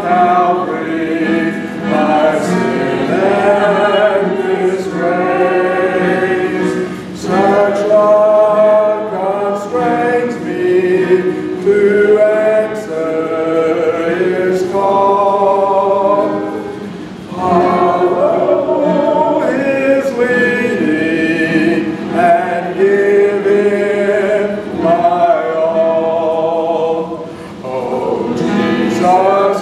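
A congregation singing a hymn together in slow, held phrases, with short breaks between lines.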